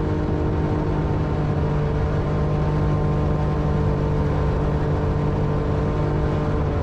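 Jet boat engine running at a steady speed while the boat moves along the river, a constant drone with no change in pitch.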